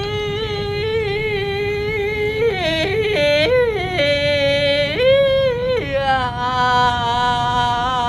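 A person's voice wailing in long, held tones in mourning, cracking and leaping between pitches in the middle before settling into a lower held note. A steady low rumble runs underneath.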